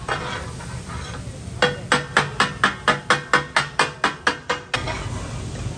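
Steel spatulas striking a large iron tawa in the fast katakat chopping rhythm: about fourteen ringing metal clangs at roughly four a second, starting under two seconds in and stopping shortly before the end.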